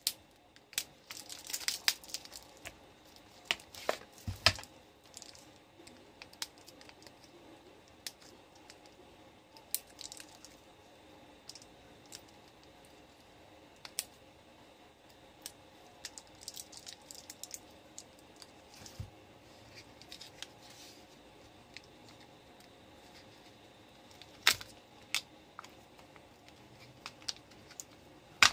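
Lithium-ion battery cells and their plastic and tape wrapping being handled by hand: the wrapping crinkles and tears, with scattered sharp clicks and knocks at irregular intervals as cells and parts are set down and picked up.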